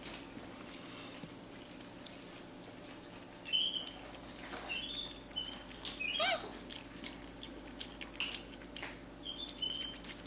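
Capuchin monkey giving short high-pitched chirps, several of them over the last two-thirds, while eating, with soft clicks of chewing and lip smacking.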